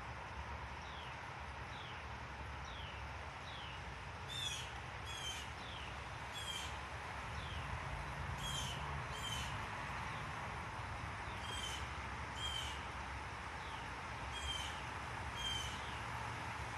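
Wild birds calling outdoors: a run of short down-slurred notes, then paired calls with a high buzzy part, repeated every second or two. A steady low background rumble runs underneath.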